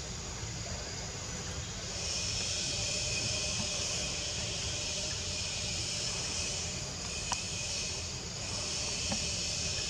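Steady high-pitched drone of forest insects, louder from about two seconds in, with one sharp click about seven seconds in.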